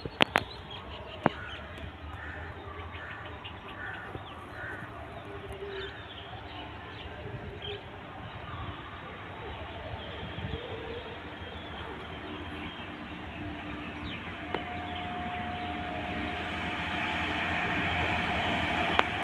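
A rail track-maintenance machine's engine approaching along the line, its steady hum growing louder through the second half. Earlier, a bird gives four short calls in a row, a couple of seconds in.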